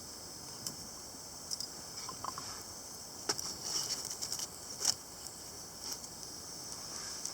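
Small wood fire crackling, with scattered sharp pops that come more thickly about halfway through, over a steady high hiss.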